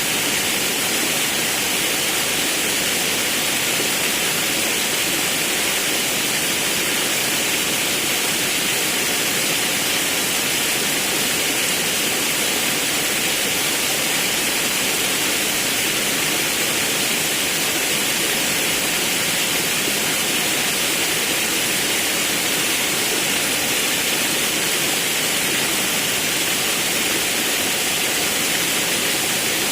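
Rushing water of a forest river and waterfall, a steady, even rush with no breaks.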